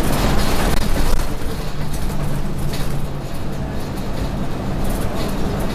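RTS city bus under way, heard from on board: a steady engine drone with road and body noise.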